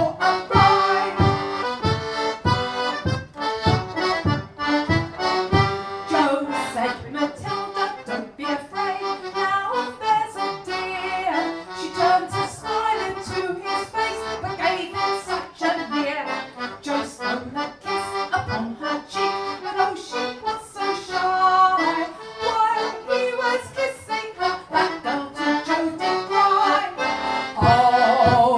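Four-stop one-row melodeon playing an instrumental polka tune: a lively melody over a steady oom-pah of bass and chord notes.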